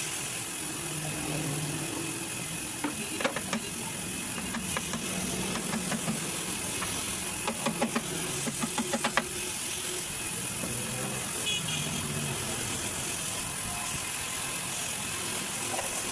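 A steady background hiss broken by several short runs of quick knocks or taps, the loudest in a run of about half a dozen near the middle.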